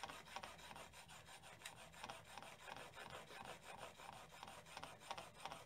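Steel plane blade, clamped in a Veritas Mk II roller honing guide, rubbed back and forth on a water stone in faint, even scraping strokes, a few a second, while a secondary bevel is honed on the edge.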